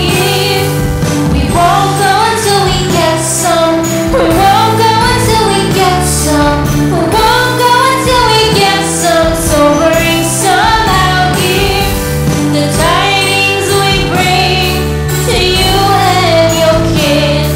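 Background song: a woman singing a melody over a steady backing track with jingle bells.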